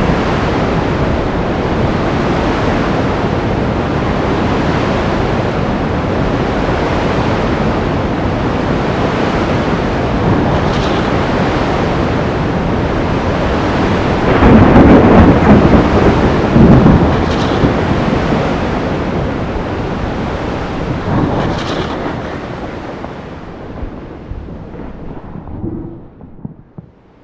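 Sea storm ambience: a steady noisy wash of surf and wind. About halfway through, a loud rumble of thunder rises and rolls for a few seconds. The storm noise then fades away toward the end.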